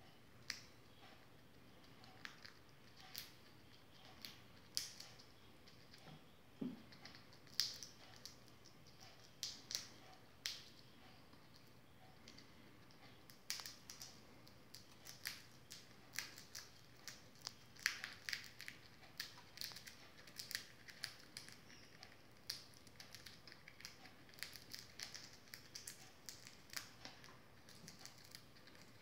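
American red squirrel gnawing an acorn: irregular crunches and sharp cracks as its teeth break the shell, coming more often in the second half.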